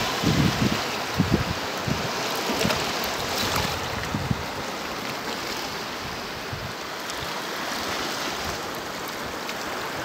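Sea water washing over a shallow rock shelf, a steady hiss of moving water with small waves breaking. Wind buffets the microphone in low gusts during the first couple of seconds.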